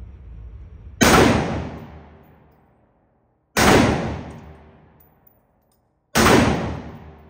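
Three gunshots about two and a half seconds apart, each a sharp crack with a long echoing tail.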